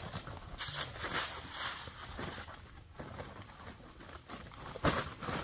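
Stiff paper leaf bag rustling and crinkling as it is carried and set down, with steps through dry fallen leaves; a louder sharp crackle comes about five seconds in.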